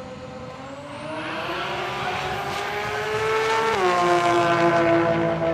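Drag car with an RB26 straight-six swapped into a Nissan S13, accelerating hard down the strip. The engine note climbs and grows louder, drops sharply at an upshift near the four-second mark, then carries on.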